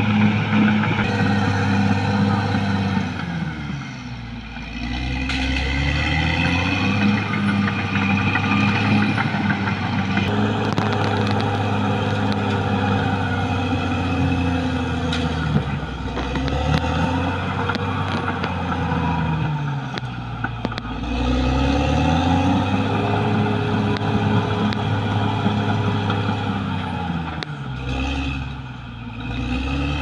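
Caterpillar D6R XL bulldozer's diesel engine running hard, its pitch dropping and then climbing back up three times as the revs fall and rise.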